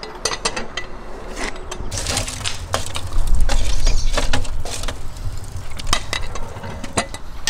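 An iron poker knocking and scraping among burning firewood in a wood-fired oven's firebox, giving a run of sharp knocks and clicks. Under it is a low rumble that swells about two seconds in.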